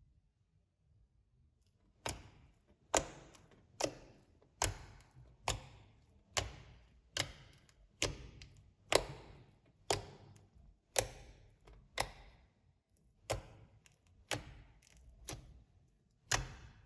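Clear slime worked by hand, giving sharp pops or clicks about once a second, each trailing off briefly; they begin about two seconds in.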